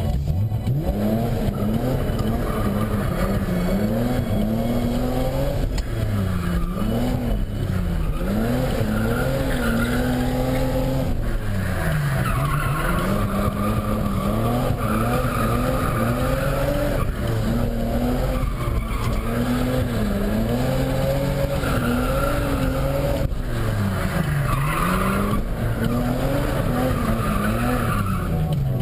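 BMW E28's M30B34 straight-six with a Schrick 284 camshaft, heard from inside the cabin, revving up and falling back again and again as the car drifts, with the tyres squealing in repeated stretches.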